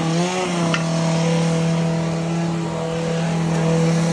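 An engine running steadily with a low, even hum. Its pitch dips and recovers briefly near the start, and there is a short click about a second in.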